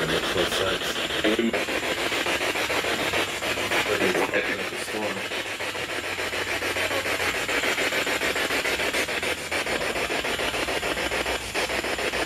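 Steady night chorus of insects: a dense, raspy, rapidly pulsing buzz that holds at an even level.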